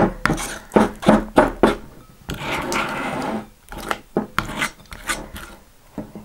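A metal spoon stirring and scraping thick, sticky glue slime in a glass bowl. There is a run of quick clinks and scrapes against the glass, a longer rubbing scrape a little over two seconds in, then more clinks.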